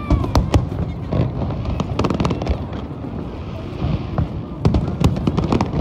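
Aerial fireworks display: a run of sharp bangs and crackles over a continuous low rumble of bursting shells, with the bangs coming thicker near the end.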